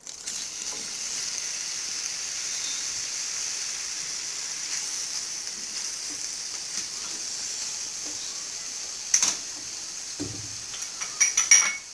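Squid strips sizzling steadily in a hot non-stick frying pan with butter and olive oil. A silicone spatula stirs them, with a few sharp clicks about nine seconds in and several more near the end.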